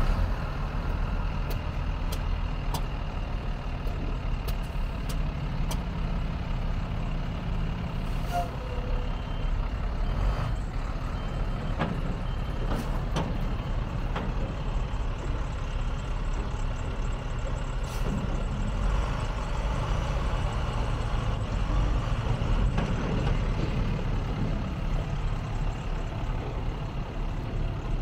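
International 4300 truck's diesel engine idling steadily after start-up.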